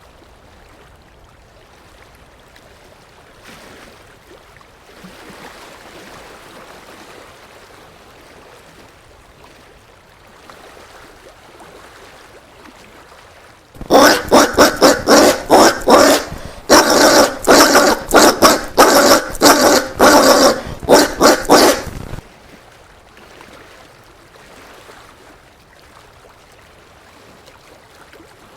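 Collared peccary giving a rapid run of loud bark-like grunts, about four a second, with a short break. The run starts about halfway through and lasts some eight seconds, after faint background ambience.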